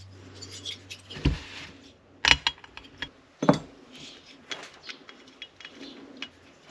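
Chainsaw engine parts and tools being handled on a workbench: a few sharp clicks and knocks of small hard pieces, the loudest a little over two seconds in, with lighter ticks between.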